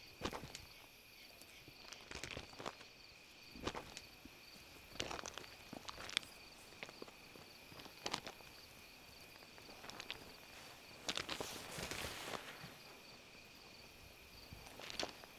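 Slow, irregular footsteps, with a steady high-pitched cricket trill behind them.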